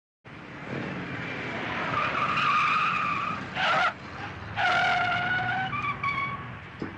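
Car tyres squealing over a running engine, in several skids: a long squeal, a short sharp one just before the four-second mark, another long one a second later, and shorter ones toward the end.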